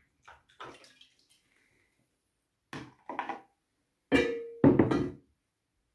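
Knocks and clinks of a plastic funnel and a glass vinegar bottle being moved and set down on and around a metal baking tray. A few soft clicks come first, then two loud knocks about four seconds in, the first ringing briefly.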